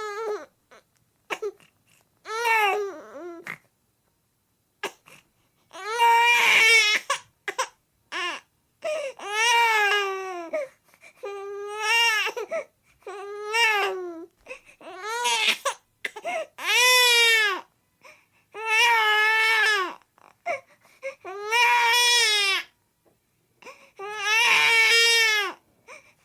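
A baby crying: a dozen or so high-pitched cries, each about a second long, rising and then falling in pitch, with short pauses between them.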